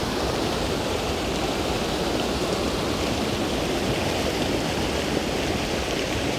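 Waterfall pouring over rocks: a steady, loud rush of falling water.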